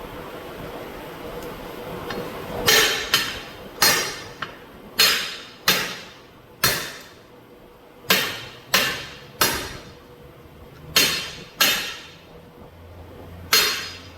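Big hammer striking the steel split rim of a 1948 Ford F600 truck wheel: about a dozen sharp blows at uneven intervals, each with a short metallic ring, driving the rim ring and tire bead into their seat.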